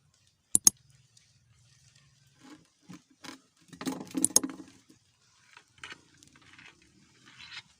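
Handling noises from unhooking a freshly caught snakehead: two sharp clicks about half a second in, then scattered taps and a burst of rustling and knocking around four seconds, with lighter taps after.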